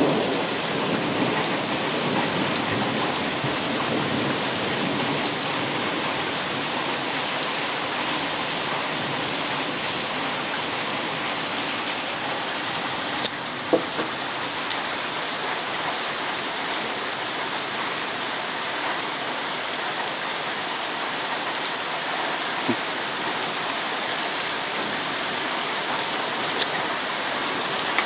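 Heavy thunderstorm rain pouring steadily, with the tail of a thunderclap dying away at the very start. A couple of sharp single knocks come through the rain, one about halfway through and one later.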